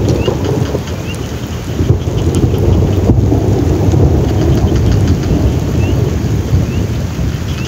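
Heavy rain pouring down under a low, rolling rumble of thunder that swells about two seconds in and slowly eases off.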